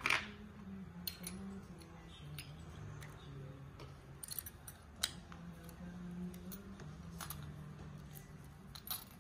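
Small metal parts of a MAYA scuba regulator first stage clicking and clinking as they are handled and fitted together by hand, a few sharp clicks spread through, over faint background music.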